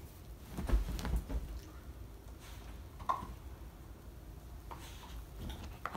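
A dog rustling and pawing through a pile of blankets and comforters while burying a bone, with a few thumps and knocks about a second in and a brief faint squeak around three seconds in.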